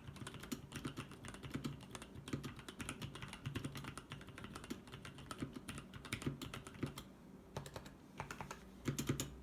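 Typing on a Sprit 75 mechanical keyboard with lubed 65 g Gateron Brown tactile switches and EnjoyPBT keycaps: a steady stream of keystrokes that thins out briefly past the middle and picks up in a louder flurry near the end.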